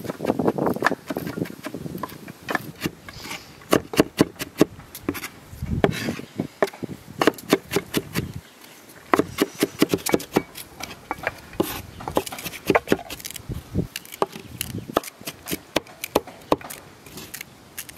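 Large kitchen knife chopping onion on a wooden cutting board: many quick, uneven knocks of the blade striking the wood, with a short pause about halfway through.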